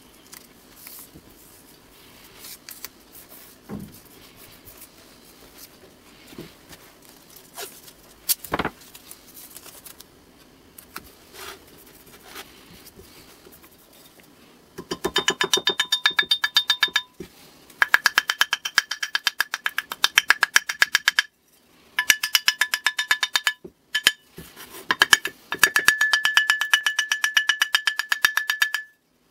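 A small hammer tapping rapidly and lightly on the cast-iron body of a Stanley 110 block plane, in runs of quick ringing metallic strikes with short pauses between. Before the tapping starts, about halfway through, there are only faint handling clicks.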